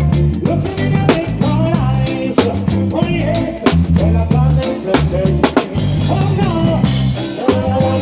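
Live band playing an upbeat tune: a drum kit with sharp, regular snare hits over a pulsing bass line, with a melody line on top.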